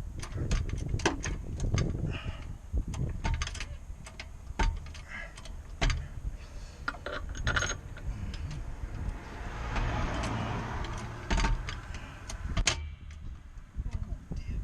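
Metal hand tools and car parts clinking and knocking at irregular intervals, with a short stretch of rustling hiss about ten seconds in.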